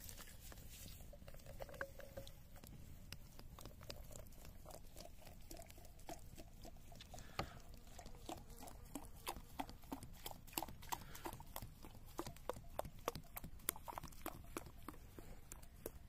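Wood campfire crackling with irregular sharp pops, few at first and coming much faster in the second half.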